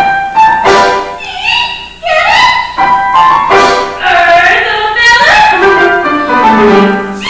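Performers singing a show tune in a stage musical, in short sung phrases, the melody sliding down near the end.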